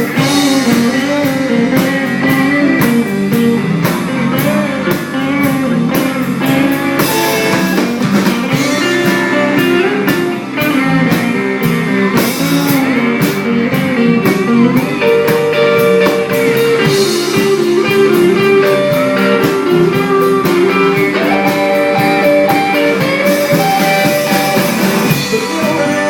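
Blues band playing an instrumental break: a guitar carries the melody over a steady drum beat.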